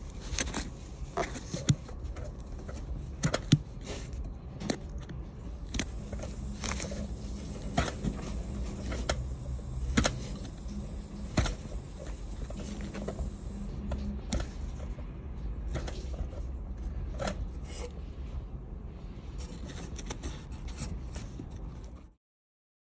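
Fingers pressing and smoothing clay-like putty onto a leaking copper pipe for a temporary leak repair: irregular soft taps and scrapes over a low steady hum. The sound cuts off abruptly near the end.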